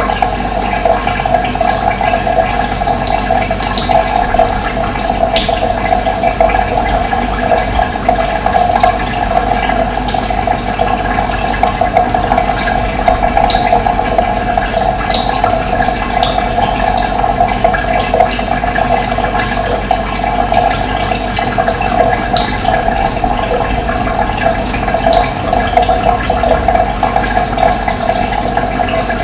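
Running water rushing steadily, with short high bird chirps scattered over it.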